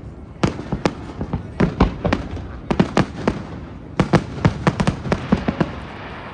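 Fireworks display: shells bursting in quick irregular volleys of sharp bangs, with short lulls between clusters, thinning out near the end.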